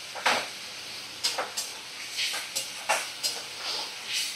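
Onion, tomato and spice masala sizzling in a kadai, with a spatula stirring and scraping it in short strokes about every half second: the masala being fried down (kashano).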